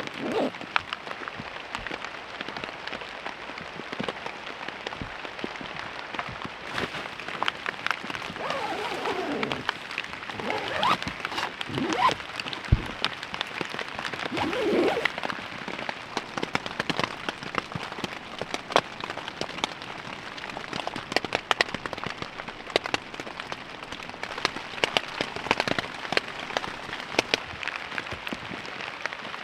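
Steady rain pattering on a tent, with dense, irregular sharp drops. A few brief pitched sounds rise and fall in the middle.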